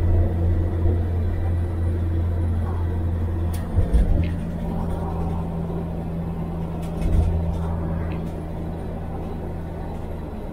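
1978 Chevy Nova's straight-six engine and road noise heard from inside the car while driving, a steady low hum. Two short thumps come about four and seven seconds in.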